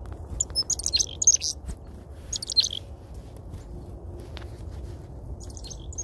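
Black-capped chickadees giving quick, high chirping calls in three short clusters: about half a second in, around two and a half seconds, and near the end, over a steady low background rumble.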